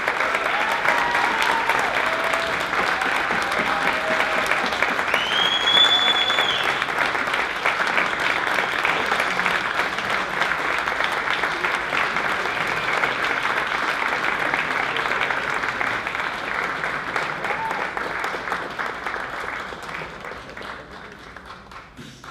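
Audience applauding steadily, with a few voices calling out in the first seconds and a short whistle about five seconds in; the clapping thins and dies away near the end.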